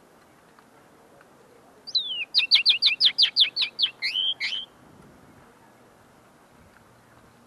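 Common linnet singing one short phrase of about three seconds, starting about two seconds in: a downward slur, a quick run of about nine repeated down-sweeping notes, and two lower notes to close. A caged bird whose song is still being refined, its notes not yet fully clear.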